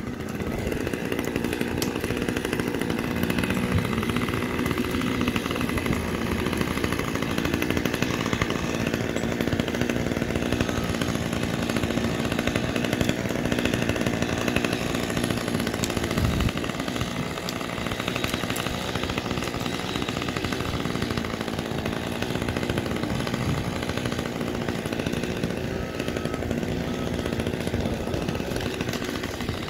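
Chainsaw engine running steadily, easing off slightly about halfway through.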